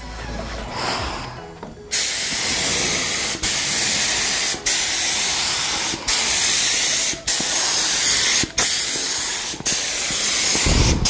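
After about two seconds, an HVLP paint spray gun starts hissing in about seven passes of roughly a second each, each cut off briefly as the trigger is let go, while it lays down a second thin coat of paint.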